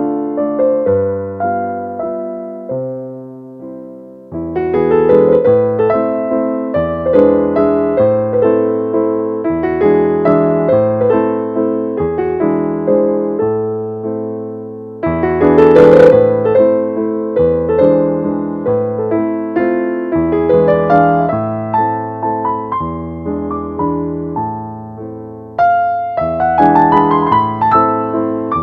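Background piano music: chords and melody notes struck and left to ring, in a slow, gentle piece.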